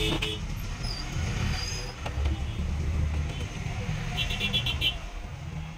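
Screws being driven one after another into a Canon G2770 inkjet printer's casing during reassembly: a low whirring hum, stronger about two seconds in, and a quick even run of clicks about four seconds in.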